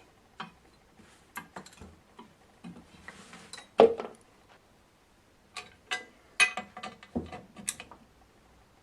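Scattered metallic clicks and knocks of a luggage rack arm and its bolts being handled and fitted, with one louder knock about four seconds in and a run of clicks near the end.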